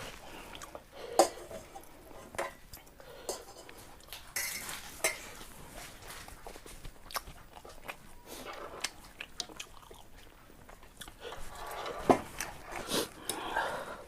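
A person eating ramen noodles: chewing, with a utensil clicking against the bowl now and then.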